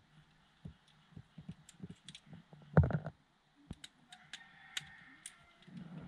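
Light plastic clicks and taps from a car's dashboard switch panel and trim being handled, with one louder knock about three seconds in.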